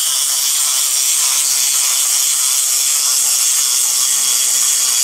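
The clockwork motor of a Chuck E. Cheese wind-up toy whirring as the toy walks: a steady, high buzz.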